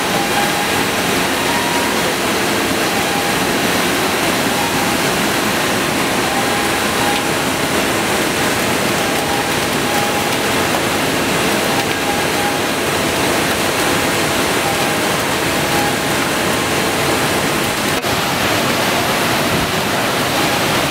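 Loud, steady din of sugar mill machinery, an even roar from the conveyor carrying crushed cane fibre (bagasse), with a faint whine that comes and goes.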